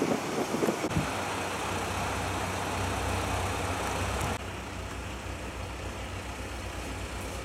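KiHa 185 diesel railcar's engine idling while the railcar stands at a station platform: a steady low rumble with an even pulse. A hiss over it lessens about four seconds in.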